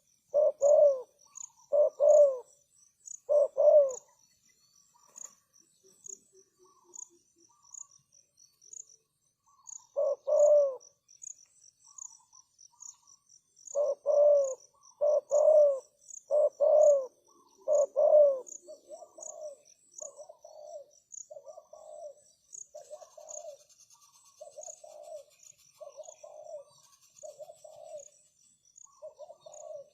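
Spotted dove cooing: loud coo notes in short runs of a few, then softer coos repeating roughly once a second. A faint high chirping pulses steadily about twice a second throughout.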